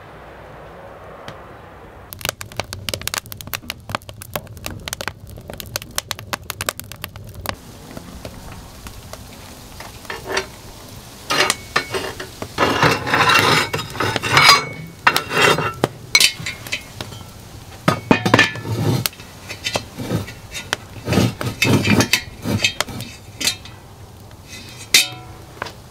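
Kitchen clatter of pots, dishes and utensils clinking and knocking. It starts with a run of quick light clicks, then turns into louder, heavier knocks in clusters over the second half.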